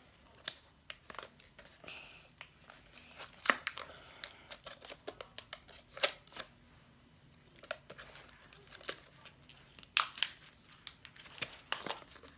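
Plastic and cardboard packaging of a coloring book and marker pack crinkling and tearing as it is unwrapped by hand: irregular crackles and snaps, several louder than the rest.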